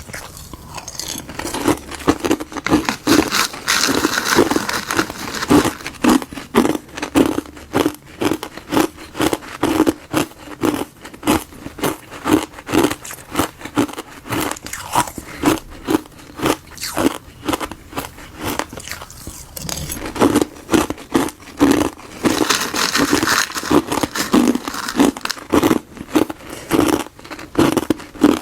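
Frozen tartary buckwheat and gardenia tea ice crunched between the teeth: a bite with a burst of crackling, then steady chewing about twice a second, and a second bite about two-thirds of the way through.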